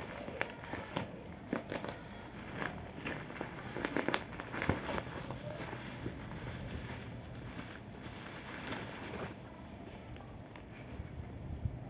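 Plastic bag and wrapping crinkling and crackling in the hands as a parcel is unwrapped. The sharp, irregular crackles come thick in the first half and thin out later.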